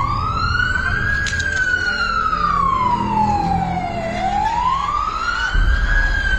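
Emergency-vehicle siren in a slow wail, its pitch rising and falling: up, down about four seconds in, then up and down again. A low street rumble runs underneath.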